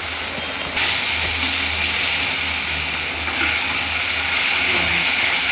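Onion-tomato masala sizzling in a kadai as it is stirred with a metal slotted spatula; the sizzle turns suddenly louder and brighter about a second in and then holds steady, over a low steady hum.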